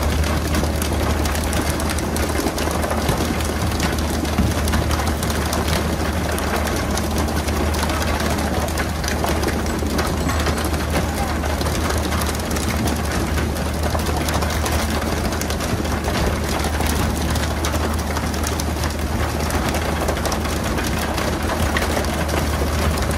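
A fishing boat's engine running steadily with a low hum, under a constant hiss of water spray and splashing around the hull.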